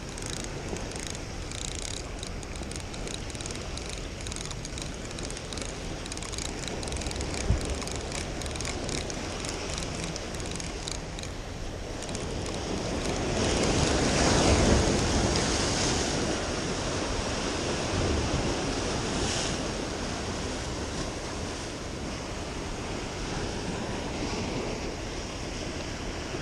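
Surf washing and breaking against jetty rocks, with wind buffeting the microphone. A wave surges louder about halfway through. Through the first half a spinning reel ticks lightly as it is cranked.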